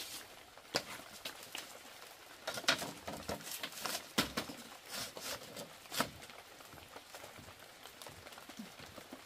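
Scattered light knocks and clicks at an irregular pace, thickest between about two and six seconds in, over a faint steady hiss.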